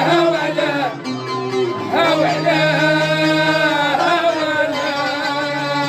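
A man singing long, wavering notes in a Middle Eastern style, accompanied by a plucked string instrument. There is a short break about a second in, and a new phrase starts about two seconds in.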